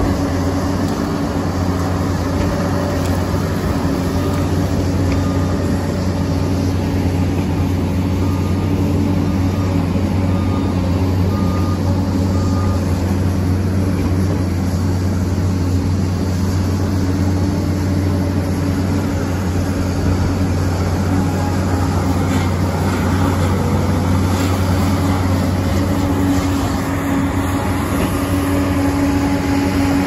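Liebherr PR 746 crawler dozer's diesel engine running steadily under load, a constant low hum, while the blade pushes earth and rock.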